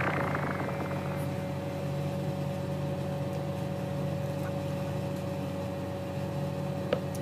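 Background electronic music in a quiet passage: a steady held synth drone with low tones and one higher held note, no beat.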